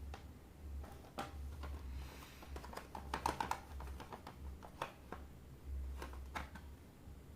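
Hands handling small plastic toy packaging during an unboxing: a string of irregular sharp clicks and taps, with a short crinkling rustle about two seconds in, over a low steady hum.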